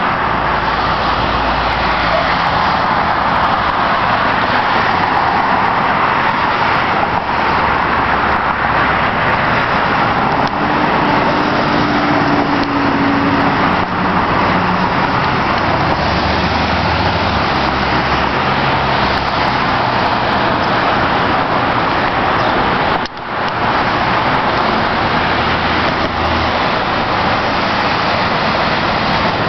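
Street traffic: cars passing in a steady wash of road noise, with one short drop in loudness about three-quarters of the way through.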